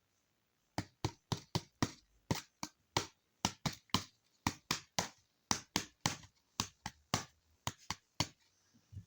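A quick, uneven series of sharp taps or clicks, about three a second, starting near the start and stopping shortly before the end.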